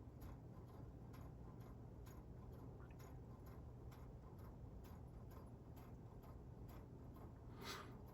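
Near silence: faint, irregular light ticks over a low steady hum.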